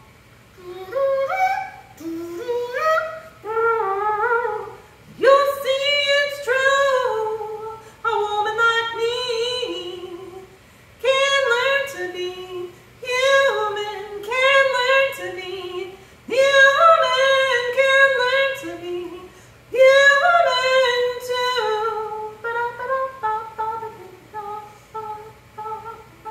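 A woman singing unaccompanied, wordless scat-style phrases of held and sliding notes, breaking into shorter notes near the end.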